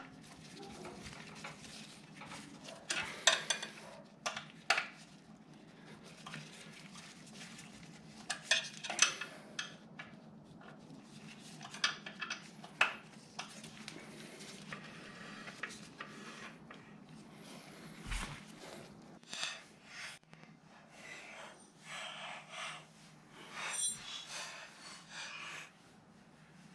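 Hand tools clinking and rattling against metal as Allen bolts are worked out of a motorcycle's rear brake caliper: scattered sharp clicks and clanks, with a faint steady hum underneath.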